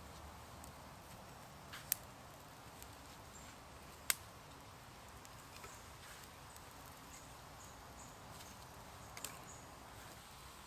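Small kindling fire of sticks crackling faintly, with sharp snaps about two seconds and four seconds in and again near nine seconds.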